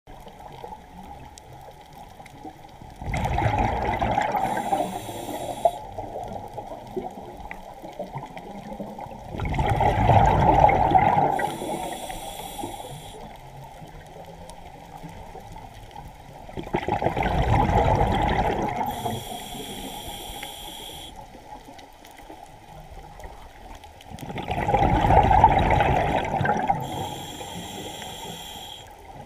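Scuba diver breathing through a regulator underwater: four loud rushes of exhaled bubbles, about one every seven seconds, each followed by a short high hiss from the inhale.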